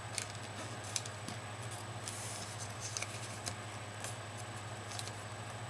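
Origami paper being folded and creased by hand: scattered light crinkles and ticks, with a short rustle about two seconds in, over a steady low hum.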